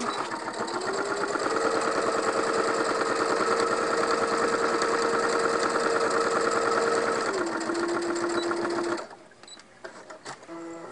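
Electric sewing machine stitching a seam. Its motor speeds up about a second in, runs steadily, slows near the end and stops, followed by a few light clicks.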